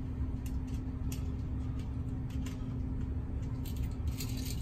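Screwdriver loosening the terminal screws on a hand-held GFCI outlet: a few faint clicks and scrapes, with a brief louder scrape of handling about four seconds in, over a steady low hum.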